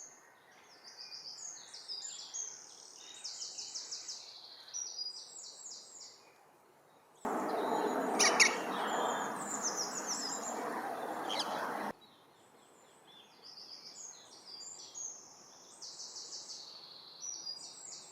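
Small songbirds singing in quick, high-pitched chirping phrases. About seven seconds in, a steady rushing noise comes in for around five seconds, with a couple of sharp clicks, then stops abruptly and the birdsong carries on.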